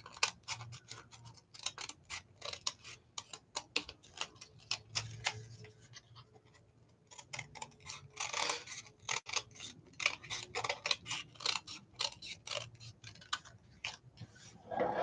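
Small scissors snipping kraft paper in a quick, irregular run of short cuts as the edge of a paper feather is trimmed, with a brief pause about six seconds in.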